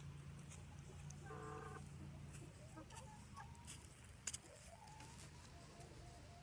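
Barred Plymouth Rock pullets giving a few faint, short clucking calls, one clearer call about a second in and more toward the end. A single sharp click a little past the middle is the loudest sound, over a steady low hum.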